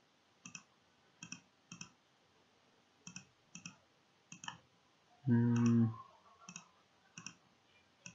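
Sparse, irregular clicks from operating a computer, about a dozen and often in pairs, while a font-size value is edited in the browser's developer tools. A brief hummed voice sound comes about five seconds in.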